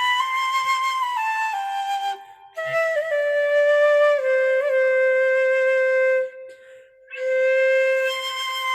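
Music: a slow, flute-like wind melody of long held notes, phrased in three parts with brief pauses about two seconds in and about six and a half seconds in.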